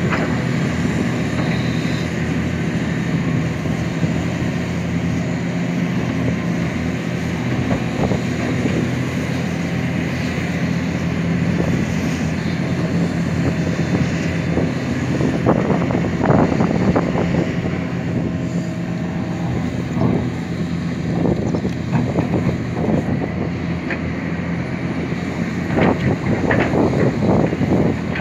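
Hitachi Zaxis 490 LCH excavator's diesel engine running steadily under work, with bursts of knocks and rattles about halfway through and again near the end as the machine digs and moves earth.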